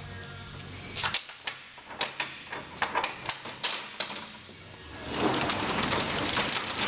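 Panel truck's new load door being worked: a string of sharp clicks and clacks, then a steady rattling rush from about five seconds in, the door running along its tracks.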